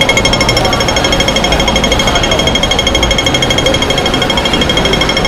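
Hong Kong pedestrian crossing audible signal ticking rapidly and evenly, the fast rhythm that tells pedestrians the green walking man is lit and it is time to cross. Low street and crowd noise lies beneath.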